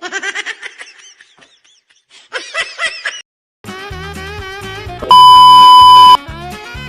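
Two short bursts of wavering vocal sound, then background music starts about three and a half seconds in. About five seconds in, a loud, steady, high censor beep sounds for about a second over the music.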